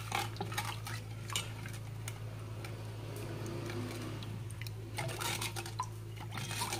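Steel spoon stirring a thin liquid in a stainless steel pot, with scattered clinks of metal against the pot and light sloshing. A steady low hum runs underneath.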